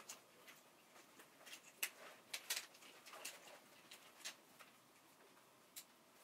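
Near silence broken by a few faint clicks and rustles as a suitcase is handled on a luggage rack.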